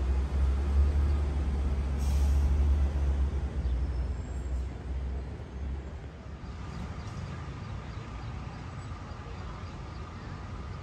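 City street traffic: a heavy vehicle's low engine rumble, loudest in the first few seconds and fading away after about six seconds, with a short hiss about two seconds in. A faint steady whine carries through the second half.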